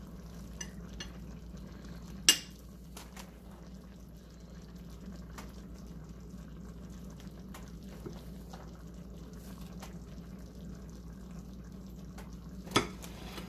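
A metal spoon scooping cauliflower rice onto a ceramic plate: soft scrapes and light ticks, with two sharp clinks, one about two seconds in and one near the end, over a steady low hum.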